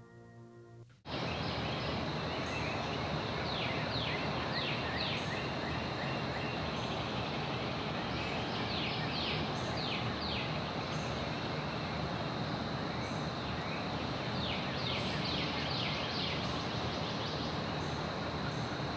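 Outdoor ambience cuts in abruptly about a second in: a steady high insect drone over steady low background noise. A bird calls three times in short runs of quick downward chirps.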